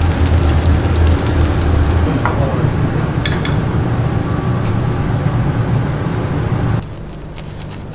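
Hot oil sizzling steadily in a deep fryer around breadcrumb-coated pieces being deep-fried, with a low hum that eases about two seconds in and a few light metal clinks a little past the middle. The sizzling cuts off suddenly near the end.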